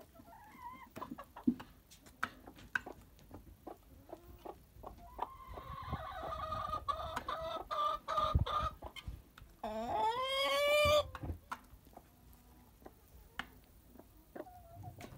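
Chickens feeding at a feeder: scattered sharp clicks of pecking. About five seconds in there is a long, steady, drawn-out call lasting some three seconds. Then, about ten seconds in, comes a louder call that rises steeply in pitch and holds for about a second.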